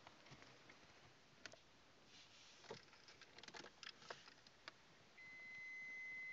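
Faint scattered clicks and rustling, as of small handling noises. About five seconds in, a steady high-pitched electronic beep comes on and holds.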